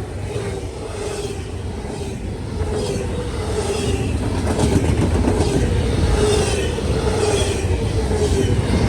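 Norfolk Southern train passing at speed, its wheels clattering over the rails with a steady wavering tone, getting louder.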